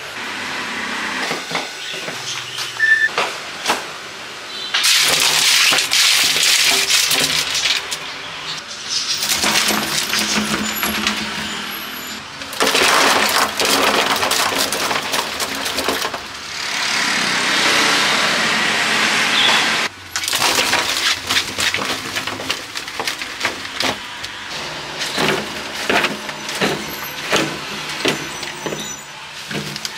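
Cut slices of sour fruit pouring out of a plastic basket onto a heap: a dense clatter of many small pieces landing. It comes in several pours of a few seconds each, then scattered single pieces dropping near the end.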